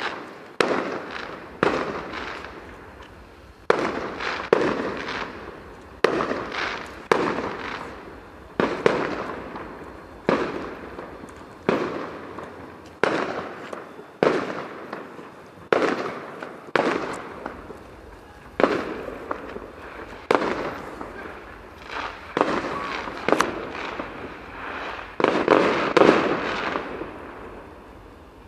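Fireworks going off one after another, a sharp bang about once a second, each one trailing away before the next. The bangs come closer together and louder near the end.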